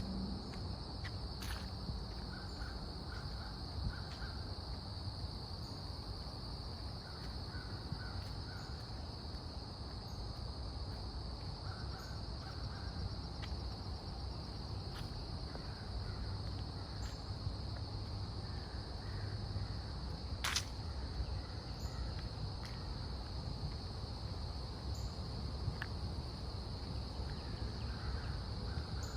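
Crows cawing in short runs of three or four calls, several times over. Under them runs a steady high-pitched drone of insects, and there is a sharp click about two-thirds of the way through.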